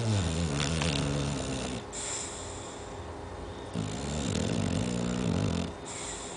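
An 11-month-old chow chow snoring: two long, rattling snores of about two seconds each, each followed by a breathy hiss of air.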